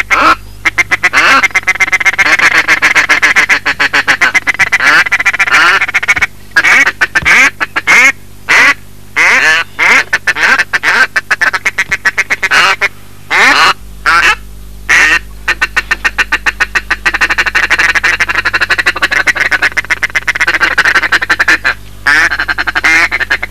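Ducks quacking loudly and almost without pause, a fast, chattering run of calls broken only by a few short gaps.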